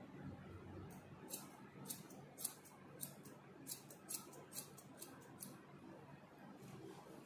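Hair-cutting scissors snipping through a section of long hair: a quick, uneven run of sharp snips starting about a second in and stopping about two seconds before the end.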